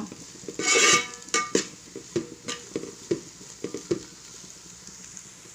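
A spatula working vegetables in a frying pan: a brief ringing scrape about a second in, then a run of taps and scrapes against the pan that stops after about four seconds. The frying sizzles faintly underneath.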